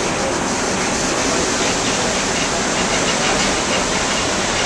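Steady, loud rushing noise that stays even throughout, with no clear voices or music.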